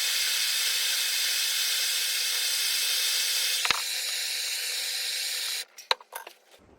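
Gas blowtorch flame hissing steadily while a pipe joint is heated for soldering. A sharp click comes near the middle, and the torch cuts off suddenly about five and a half seconds in, followed by a few light clicks.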